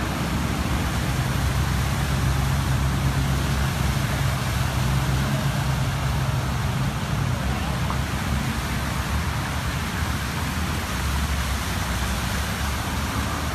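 Motor traffic on a flooded road: car engines running and tyres swishing through standing water, making a steady hiss, with one engine's low hum holding steady through the first half.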